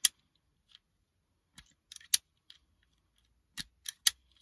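Hand wire stripper snipping and clicking as a cable end is trimmed: one sharp click at the start, a pair about two seconds in, and three more close together near the end.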